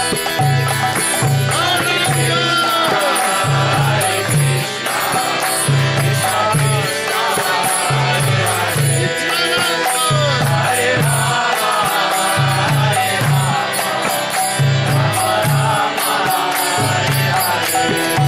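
Kirtan: devotional chanting sung over sustained steady tones, with a rhythmic low drum and regular bright cymbal strokes keeping the beat.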